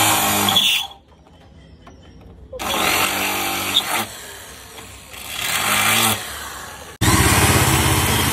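Small handheld electric angle grinder cutting into a scooter's plastic floor panel in four short runs. Its motor whine winds down in the gaps between cuts, and the last run is the longest.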